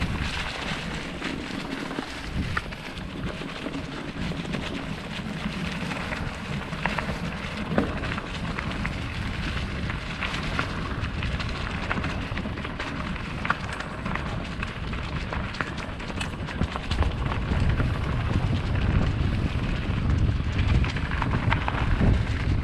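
Mountain bike rolling over a rocky, gravelly trail: a steady crunching and crackling of tyres on loose stones, with scattered clicks and rattles. A low rumble grows louder over the last few seconds.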